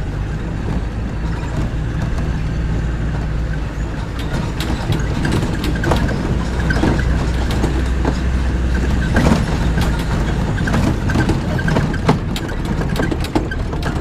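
A 1940s Willys Army Jeep's engine runs steadily while driving, with scattered knocks and rattles throughout.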